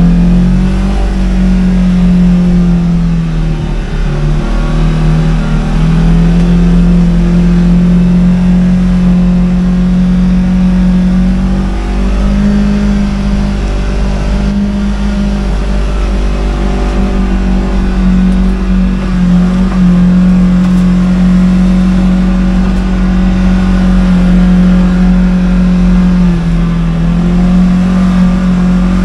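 Segway Villain side-by-side's engine running steadily under way off-road, its pitch stepping up and down a little every few seconds as the throttle changes.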